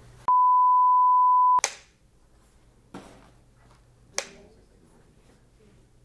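A steady electronic beep, one pure pitch held for just over a second with dead silence under it, cuts off abruptly; after it come a few sharp snap-like clicks a couple of seconds apart over a faint low room hum.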